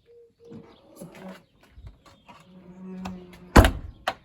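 Small clicks and knocks, then one loud thunk about three and a half seconds in and a lighter knock just after, as the boot lid of a BMW E46 is shut.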